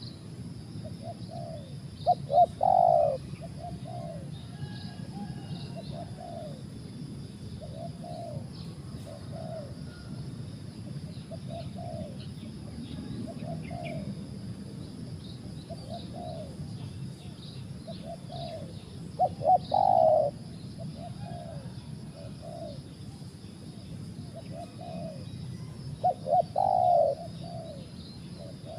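Spotted doves (tekukur) cooing. Three loud multi-note coo phrases come near the start, at about two-thirds of the way through and near the end, with fainter coos repeating every second or two in between. Faint chirps of small birds sound over a steady low background hum.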